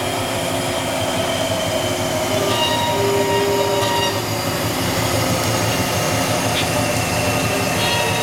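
Amada HFA400W horizontal band saw running, a steady mechanical noise with several high tones that come and go over it.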